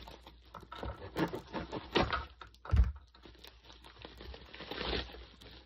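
Rustling and crinkling of a small white packaging bag as it is handled and opened, with a dull knock a little before the middle.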